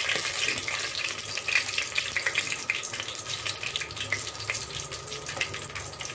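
Bay leaves sizzling in hot cooking oil in an aluminium pot, a steady hiss with many small crackles and spits.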